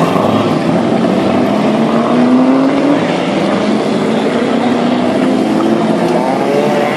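Several historic touring race car engines running loudly as the cars pull away one after another in a line, their overlapping engine notes rising in pitch as each accelerates.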